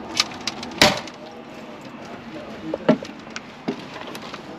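Latch clicks and a sharp knock from a Bigfoot truck camper's entry door being opened, then a few lighter knocks as someone climbs into the doorway.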